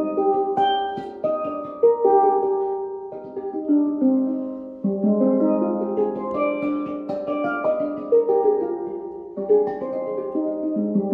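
A pair of alto steelpans struck with rubber-tipped sticks, playing a melody in a run of short, ringing metallic notes. The loudness falls briefly twice, near the middle and near the end, as phrases close.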